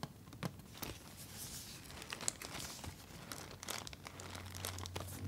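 Fingernails tapping and scratching on a cardboard Tampax box, with crinkly rustles as it is handled: a scatter of sharp clicks throughout.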